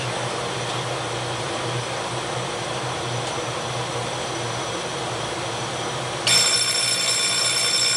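Steady ship's engine-room machinery noise, then about six seconds in a loud alarm buzzer starts suddenly and sounds steadily on the main control console.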